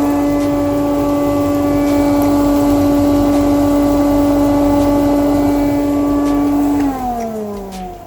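Cormak DC200 cyclone dust extractor running with a loud, steady motor hum and rush of air. About 7 seconds in it is switched off and the motor winds down, its hum falling in pitch.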